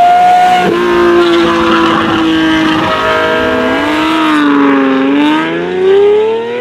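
Lamborghini engine revving hard under acceleration: its pitch climbs, drops suddenly about a second in, holds steady, then dips and climbs again near the end.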